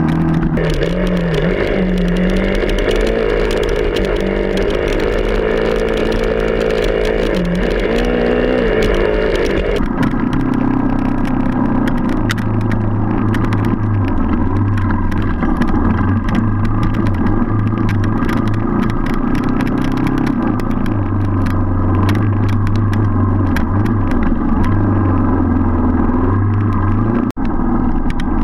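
Enduro motorcycle engine heard from on board while riding a muddy trail, its note stepping up and down as the throttle opens and closes, with clattering from the bike over the rough ground.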